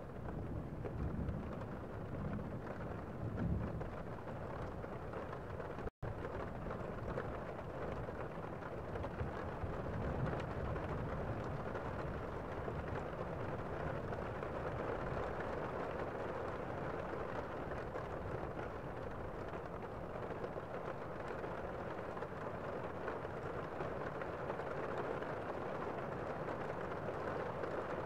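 Waterfall cascading over rocks into a pool: a steady rush of falling water, with a little deeper rumbling in the first few seconds. The sound cuts out for an instant about six seconds in.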